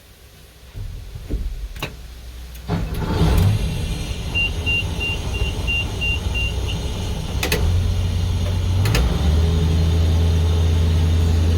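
Farm vehicle being started: a few clicks and knocks, then a row of about eight short, high warning beeps. Its engine then starts and runs steadily, stepping up once just after nine seconds in.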